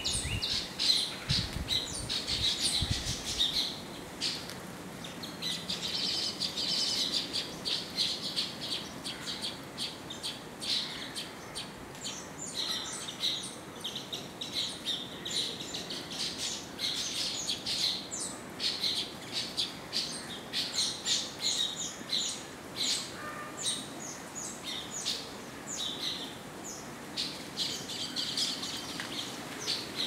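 Indian silverbills (white-throated munias) chirping: quick, high, short twittering notes that come almost without a break and often overlap, as from several birds at once.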